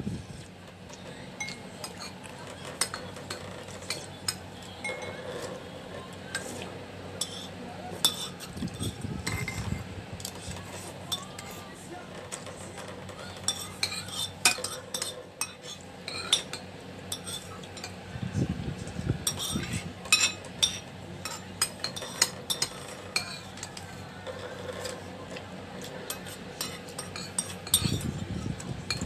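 Metal spoon clinking and scraping against a bowl in many short, irregular taps, with eating and chewing sounds.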